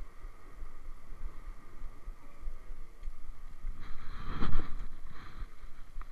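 Steady wind and surf noise on the microphone at a rocky shoreline. A louder rushing burst builds about four seconds in, peaks and fades within about a second and a half.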